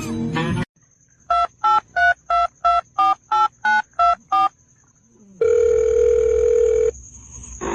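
Telephone keypad dialing tones: about ten short two-note beeps in quick succession, then a single steady tone lasting about a second and a half.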